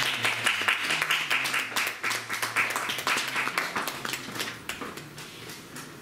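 A small audience applauding, the clapping thinning out and fading away near the end.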